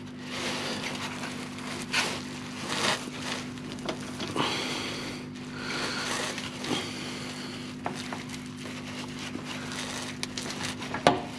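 Gloved hands forcing a tight rubber bottom radiator hose onto its radiator outlet: irregular rubbing, scraping and crackling with clothing rustle and a few sharp clicks.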